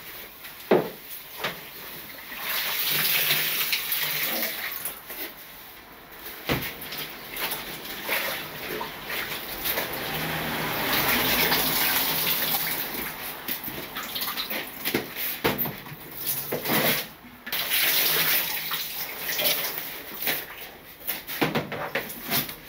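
Water splashing and dripping in a bathtub as laundry soaked in bleach water is wrung out and lifted into a plastic washbowl, swelling for a few seconds at a time, about three times. A couple of sharp knocks come in between.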